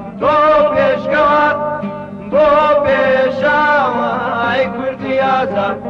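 Background music: a Kurdish song in a Middle Eastern style, with long, wavering melodic phrases of about two seconds each over a steady low accompaniment.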